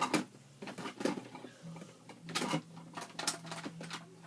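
Hard plastic Play-Doh tools and cutters being rummaged through and handled, giving irregular clicks and clatters in small clusters, over a faint low steady hum.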